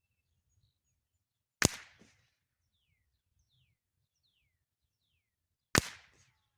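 Two .22LR shots from a Ruger 10/22 rifle, each a sharp crack with a short tail, about four seconds apart. Between them a bird calls faintly with a run of short, falling chirps.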